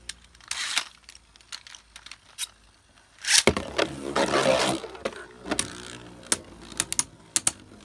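A Beyblade top is launched about three and a half seconds in: a burst of about a second and a half as the launcher is pulled and the top lands and skids on the plastic stadium floor. After that come sharp, irregular clicks, several a second, as the two spinning Beyblade tops strike each other.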